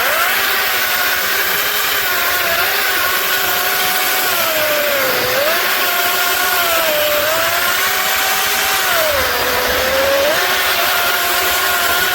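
Cordless brushless electric chainsaw running at full speed with a steady whine, cutting through wood; the pitch sags twice as the motor slows under the load of the cut, then picks back up.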